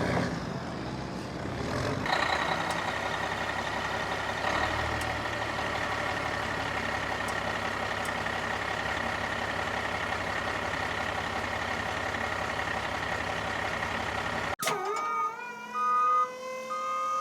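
A steady low engine-like hum under a steady high tone, which breaks off suddenly near the end into synthesizer music with rising tones and short repeated beeps.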